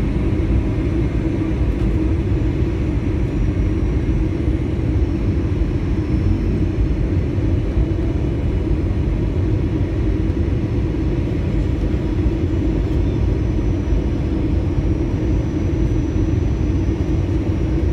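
Steady airliner cabin noise, the engines and rushing airflow heard from a window seat as the plane descends on approach to land. It holds an even rumble throughout, heaviest in the low end with a steady hum a little above 300 Hz.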